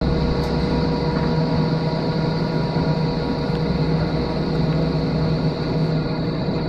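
Pacific National diesel-electric freight locomotives approaching with a freight train, their engines running with a steady hum.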